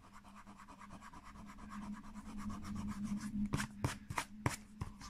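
Eraser scrubbing rapidly back and forth on an old paper book page, rubbing out red pencil scribbles; the rubbing grows louder as it goes on, with a few sharp clicks in the second half.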